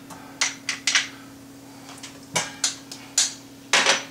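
A wooden spoon knocking and clicking against a stainless steel pan as chopped shallot is stirred in hot olive oil: a scatter of short, sharp knocks in small clusters, over a steady low hum.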